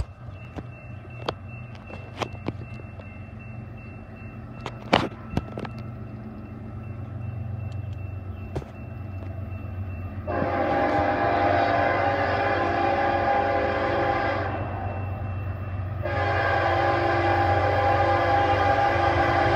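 Approaching diesel locomotive sounding its multi-chime air horn in two long blasts: the first lasts about four seconds, the second starts after a short gap and is still going at the end. A low engine rumble runs underneath, with a few sharp clicks in the first few seconds.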